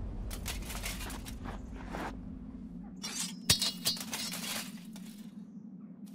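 Sound effects over a low steady hum: a run of sharp clicks and knocks, then a louder cluster of ringing clinks about three and a half seconds in.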